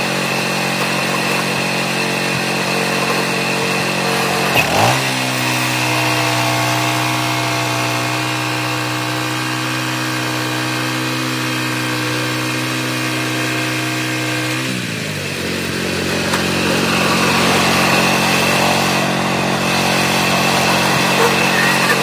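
Small gas engine of a manual portable band sawmill running steadily while the blade cuts through a hemlock log. The engine note drops in pitch about five seconds in and again about fifteen seconds in.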